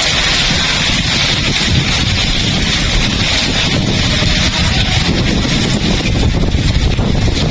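Heavy rain hissing steadily, with strong wind buffeting the microphone in a low, gusting rumble.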